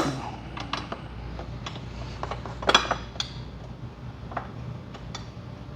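Scattered light metallic clicks and clinks, with a louder cluster a little under three seconds in: a bolt and hex key being handled and fitted while a motorcycle passenger grab rail is bolted on.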